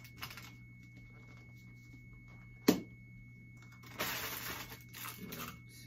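Handling of plastic Easter eggs and candy packaging: soft crinkling of plastic wrappers, with one sharp plastic click about halfway through and a longer burst of crinkling about two-thirds of the way in.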